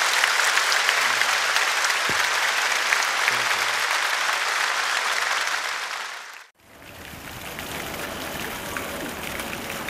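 Large audience applauding steadily in a hall, fading out about six seconds in. After a sudden cut, a quieter steady outdoor background noise.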